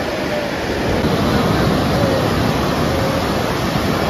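Ocean surf breaking on a sandy beach: a steady, continuous rushing wash.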